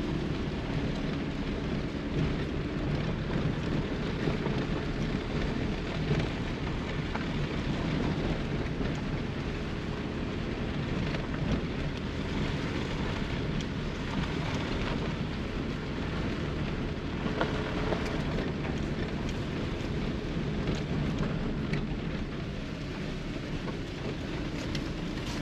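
Car driving along a dirt track, heard from inside the cabin: a steady rumble of the tyres on the rough surface, with many small crackles of grit and stones.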